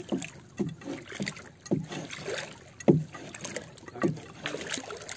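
Seawater sloshing and slapping right at the microphone, in irregular splashes two or three times a second, with one sharper slap about three seconds in.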